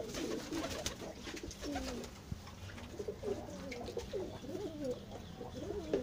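Domestic pigeons cooing, several birds at once, their low, wavering coos overlapping.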